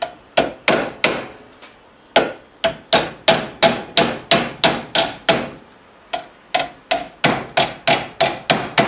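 Hammer striking the edge of a sheet-metal duct fitting, crimping it inward to narrow its end, with each blow ringing briefly. Three blows, a pause of about a second, then steady blows about two a second, a short pause near six seconds, and quicker blows to the end.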